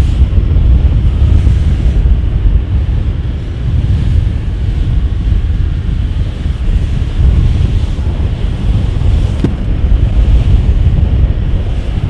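Heavy wind buffeting the microphone as a fishing boat runs through choppy open sea, a loud, even low rumble with water noise. A single short click about nine and a half seconds in.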